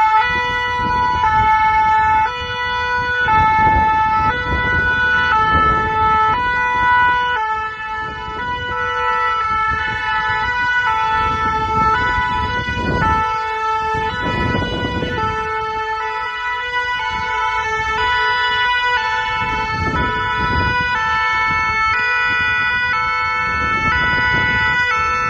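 Several French two-tone emergency sirens from fire engines and ambulances sound together, each stepping between two pitches about every half second and overlapping into a chord. A low rumble swells and fades beneath them.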